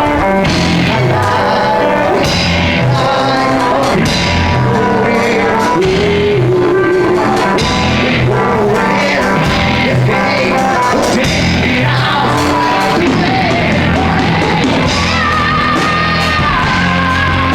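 Loud rock song by a band, with a singing voice over a full band, and sustained high held notes near the end.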